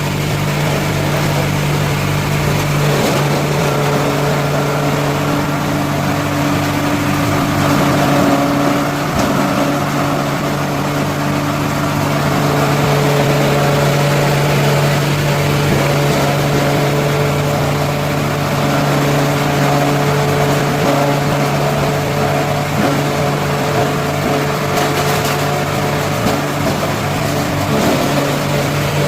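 Coconut-husk grinder (G-60 type, driven by a 15 HP three-phase electric motor) running steadily under load, grinding coconut fibre into cocopeat: a constant low hum with a churning mechanical noise over it.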